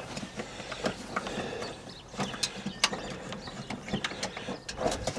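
Scattered light clicks and knocks of hand tools and metal parts being worked at the battery hold-down, with handling noise between them.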